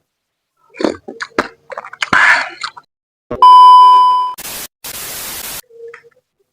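A few clicks and a short rustle, then a loud steady beep lasting about a second, followed by two bursts of even hiss like TV static.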